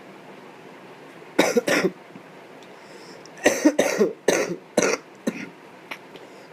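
A person coughing: two coughs about a second and a half in, then a run of four quick coughs and a last smaller one in the second half.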